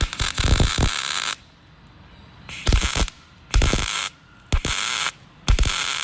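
A welder putting short welds into a sheet-steel wheelhouse panel, one weld after another: about five bursts, each a second or less, with short pauses between.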